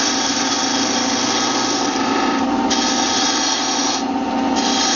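Wood lathe running with a half-inch bowl gouge cutting into the spinning spindle blank: a steady motor hum under a hissing shaving sound that drops out briefly twice, about two and a half seconds in and again about four seconds in.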